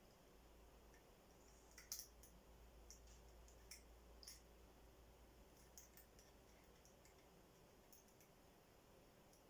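Faint, irregular small metallic clicks of a lock pick working the pins of a five-pin tumbler lock under tension, scattered through with a cluster about two seconds in.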